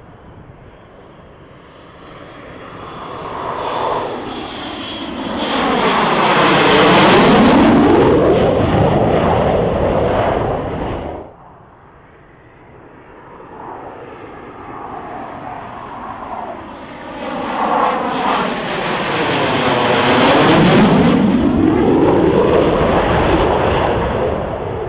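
Two F/A-18 Hornet jets on landing approach, one after the other, each with its twin jet engines swelling to a loud peak and a sweeping whoosh as it passes close by, then starting to fade. The first is cut off suddenly about eleven seconds in, and the second builds up a couple of seconds later.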